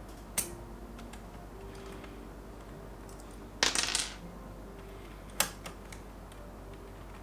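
Hard plastic clicks from handling a Keychron K2 mechanical keyboard's keycaps: a single sharp click, a short rattling clatter a little past halfway, and another single click.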